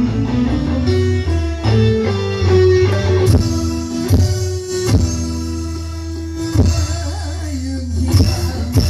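Dangdut music played loud over a large sound system: a guitar melody stepping from note to note over heavy held bass notes, with a few sharp drum hits.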